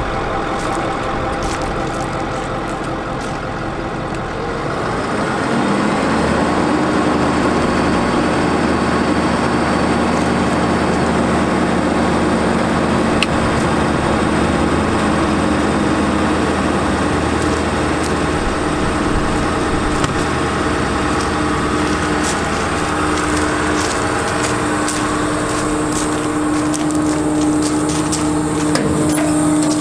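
Ford 6.4L Power Stroke V8 diesel in a bucket truck running at idle. About five seconds in the engine steps up to a louder, higher steady speed and holds there.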